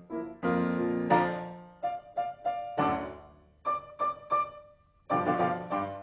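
Piano accompaniment for a silent film: sustained chords, then short staccato notes in groups of three about two and four seconds in, ending on a loud chord near five seconds.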